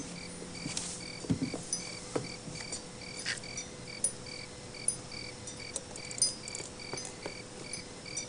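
Crickets chirping, short even chirps a few times a second, over a faint steady hum with scattered light clicks.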